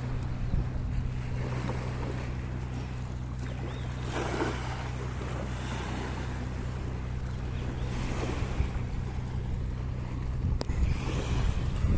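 Boat engine running steadily, with water rushing and splashing against the hull and wind on the microphone.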